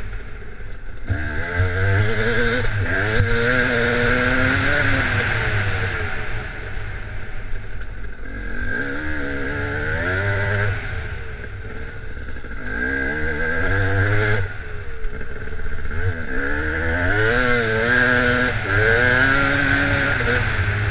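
Dirt bike engine under way, its pitch rising and falling several times as the throttle is opened and closed.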